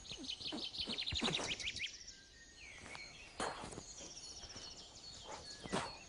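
Woodland songbirds singing: a fast falling trill of chirps in the first two seconds, then a higher repeated trill later on. A few soft scuffs of footsteps on a dirt path break in, the clearest about three and a half and six seconds in.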